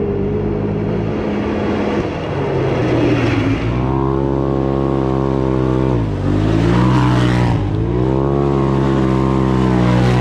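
Side-by-side UTV engine pulling hard on a dirt trail, with rushing tyre and dirt noise over it. Its revs dip sharply twice in the second half, as the throttle is let off, and climb straight back.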